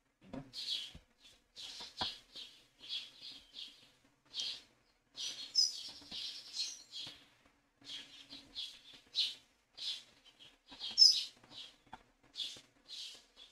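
Birds outside calling excitedly, a busy run of short high chirps one after another with brief gaps.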